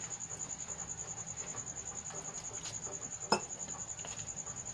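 A wire whisk stirs gram-flour batter in a plastic bowl, with one sharp knock of the whisk against the bowl a little past three seconds in. A cricket's steady high trill runs behind it.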